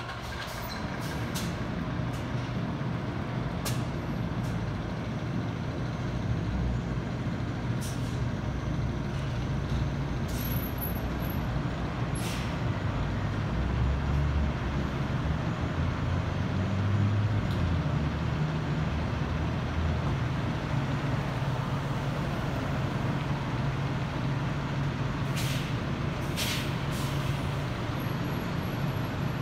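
Diesel engines of Spartan Gladiator fire trucks idling with a steady low rumble, with short air-brake hisses several times.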